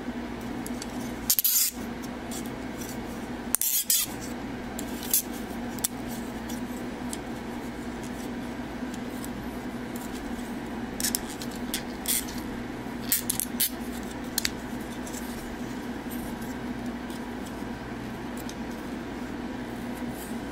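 Hard plastic parts of a 52Toys BeastBox figure clicking and clattering as its limbs and joints are handled and moved, with the sharpest clicks about a second and a half and four seconds in and a run of lighter clicks in the middle, over a steady background hum.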